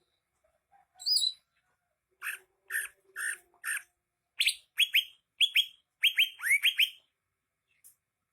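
Green leafbird (cucak hijau) singing: a short rising whistle, four even chirps, then a fast run of about ten sharp notes that each sweep downward.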